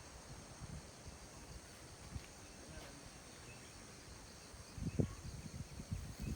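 Outdoor nature ambience: a steady, high-pitched insect drone with a few faint chirps, under low rumbles of wind on the microphone and a dull bump about five seconds in.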